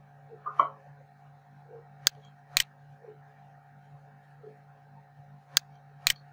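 Computer mouse clicking: two pairs of sharp clicks, each pair about half a second apart, the second pair near the end, over a steady low hum. A brief dull knock comes about half a second in.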